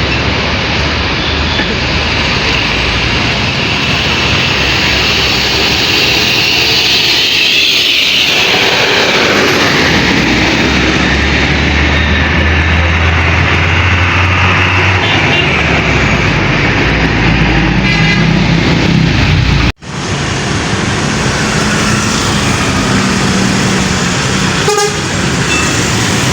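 Busy road traffic with a Bagong intercity bus passing close by: its engine running and horns sounding over the rush of tyres and other vehicles.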